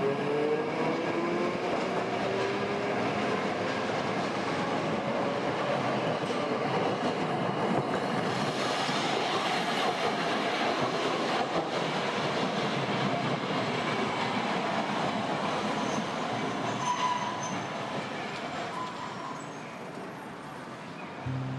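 Hakodate city tram on its street track, its motor whine rising in pitch as it gathers speed over the first few seconds, with a steady rumble of wheels on rail. The sound fades near the end.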